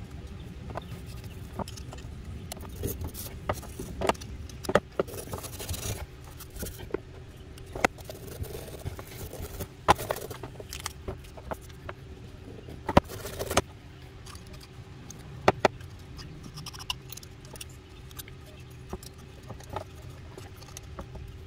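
Wire brush scrubbing old paint and grime off a motorcycle brake master cylinder body in scratchy bursts, with sharp clicks and taps of small metal tools against the part. A steady low hum runs underneath.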